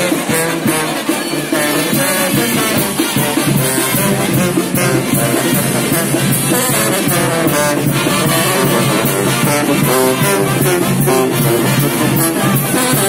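Live street brass band playing a lively tune: sousaphones and other brass over a steady beat of drums.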